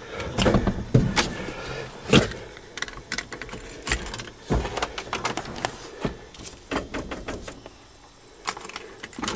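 Irregular clicks and knocks of handling around the Ford diesel pickup's cab, a dozen or so sharp ones spread unevenly, with no engine cranking or running yet.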